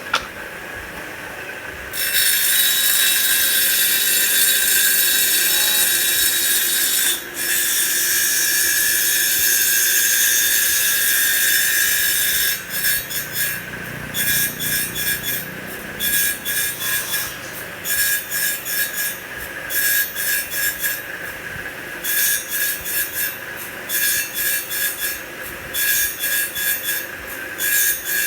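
CNC wood lathe cutting a spinning wooden blank, over a steady high whine. About two seconds in, one long continuous cut starts and runs for some ten seconds; after that come a run of short cuts in quick succession, one or two a second, as the tool shapes beads along the blank.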